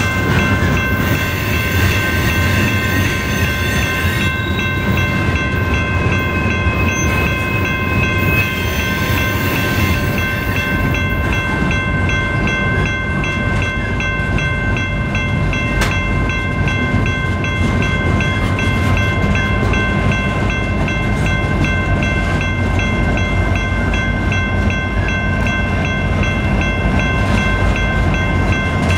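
Coal hopper cars of a freight train rolling past with a steady rumble, and a steady high-pitched whine that holds at one pitch over it.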